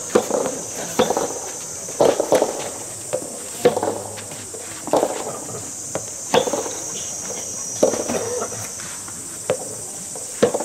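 Soft tennis balls being struck by rackets, a short sharp knock about every second, over a steady high drone of insects.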